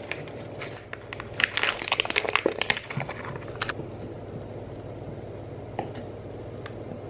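Kitchen knife cutting soft white cheese into cubes on a wooden cutting board: a quick run of sharp taps of the blade on the board from about a second in until nearly four seconds, then a couple of single taps over a steady low hum.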